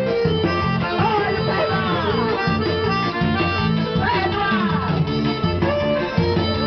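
Forró music with accordion over a steady bass beat.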